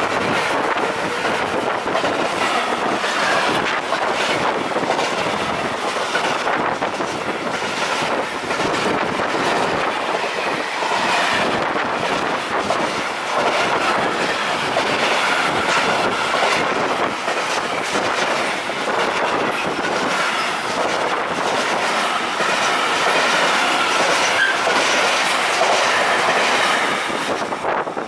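Freight train passing close by at speed: tank-container wagons rumble and clack continuously over the rails.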